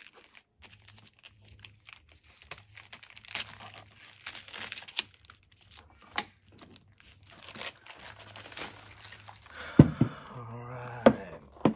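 Plastic security bag crinkling and rustling as it is snipped open with scissors and a laptop is slid out of it. A couple of sharp knocks come near the end as the laptop is handled on the wooden table.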